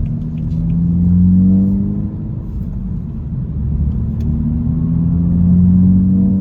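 BMW 428i's AWE axle-back exhaust droning from inside the cabin with the windows up, in the quieter comfort mode. The low note swells under throttle about a second in and again near the end, easing off between.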